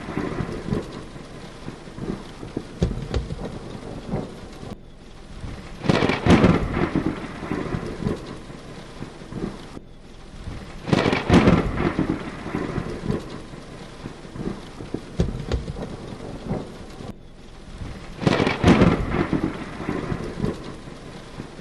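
Heavy rain falling steadily, with loud claps of thunder about six, eleven and nineteen seconds in, each rumbling away over a few seconds. The sound cuts out for an instant three times, where the recording is spliced.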